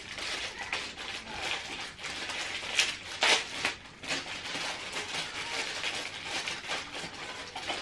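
Hands handling a mouse and keyboard and their packaging: rustling with scattered small clicks, and two louder knocks about three seconds in.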